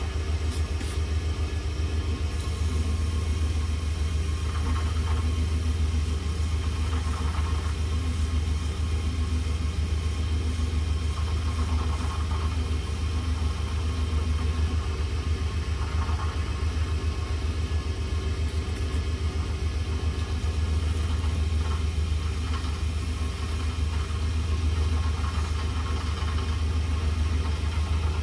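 Small lathe motor running at a steady speed with a strong low hum, spinning a pen blank on a mandrel. A faint soft rubbing comes and goes as a pad is held against the turning blank to sand or polish it.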